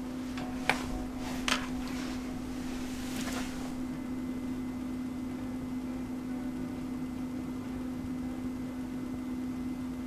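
Steady low room hum, with two short clicks in the first two seconds and a faint brief rustle around three seconds in.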